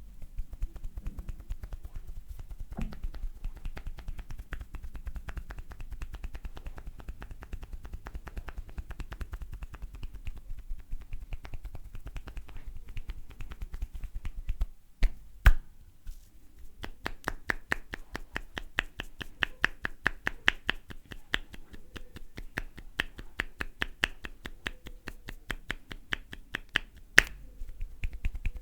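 Barber's hands making a rapid, even run of sharp snapping pops on the head during an Indian head massage. The pops break off briefly about halfway, with a couple of louder cracks, then come back louder, and another loud crack comes near the end.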